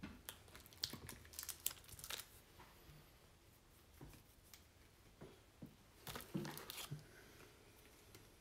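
Faint keyboard typing in two short rapid runs of clicks, one about a second in and one about six seconds in, with a few scattered keystrokes between, as names are typed into a randomizer.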